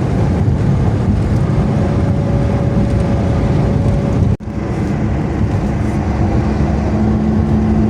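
Steady engine and tyre road noise inside a Daewoo Matiz cruising on the highway. The sound cuts out for a moment about four seconds in.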